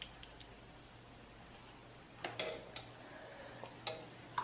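A metal spoon clinking lightly against a cup a few times while palm jaggery syrup is spooned into the coffee, with the first clinks a little over two seconds in and more near the end.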